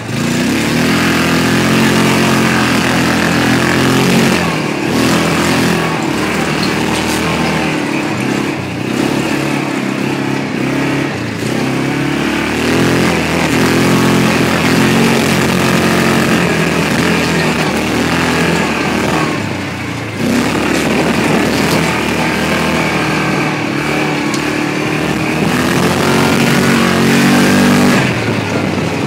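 Yamaha Rhino side-by-side's single-cylinder four-stroke engine driving hard on a dirt trail. Its pitch rises and falls as the throttle is worked, and it drops off briefly several times, most clearly about two-thirds of the way through.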